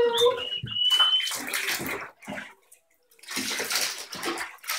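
Shallow bathwater splashing and sloshing as a hand scrubs a small wet Maltese puppy in a bathtub, in two spells with a short pause between. A thin high whine sounds during the first second.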